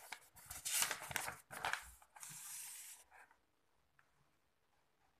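Paper pages of a book being turned by hand: several quick rustles and flaps, then a longer sliding rustle about two seconds in.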